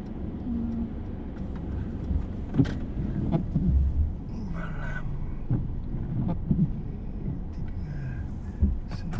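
Inside a car moving slowly in the rain: a steady low rumble of engine and road, with scattered sharp taps, the loudest about two and a half seconds in and again near the end.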